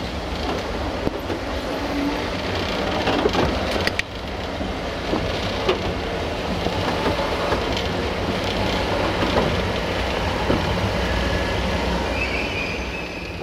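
Diesel-hydraulic shunting locomotive rolling slowly through a station, heard from its cab: a steady low engine rumble, wheel and rail noise, and scattered sharp clicks and knocks, one louder knock about four seconds in.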